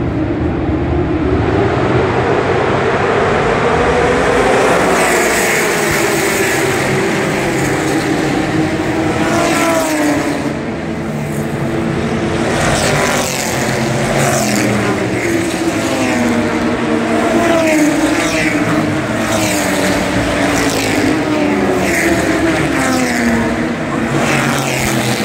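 A field of historic racing cars, Ford GT40 V8s among them, passing one after another on a rolling start. Many engines sound together, their pitches rising and falling as each car goes by.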